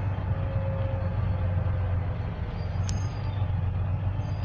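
Double-decker bus engine running with a steady low drone while under way, heard from inside the upper deck, with one sharp click about three seconds in.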